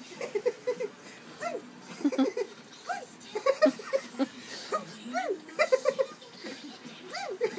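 People laughing, in repeated runs of short giggling pulses.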